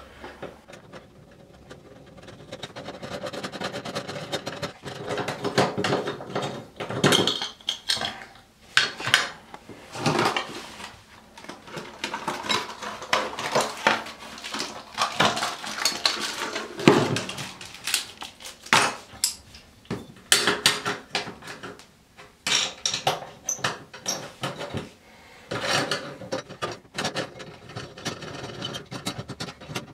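Handling of small metal bathtub drain parts: irregular clinks and taps of a screwdriver, screw and metal overflow plate against each other and the tub, mixed with rustling of the new drain kit's plastic packaging.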